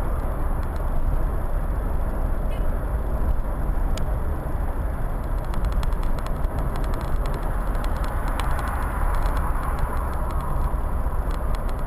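Steady road and engine noise of a moving car, heard from inside the cabin, a low rumble with a hiss of tyres and air, with a few faint clicks scattered through.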